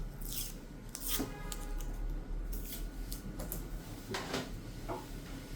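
Hands handling small electronic parts: a series of short scrapes and rubs with a few light clicks, as an NVMe SSD is handled for fitting into the laptop's empty M.2 slot, over a low steady hum.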